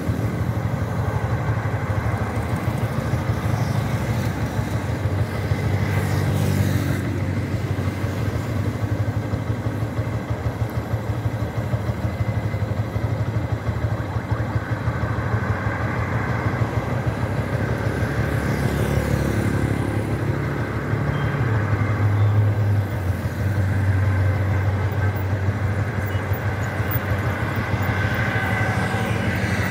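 Motorcycle engine running steadily while riding on a highway, with road and wind noise around it.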